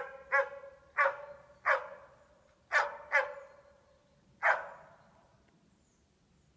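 Hunting dog barking at a moose, holding it at bay: about seven sharp barks over the first five seconds, each with a short echo, then stopping.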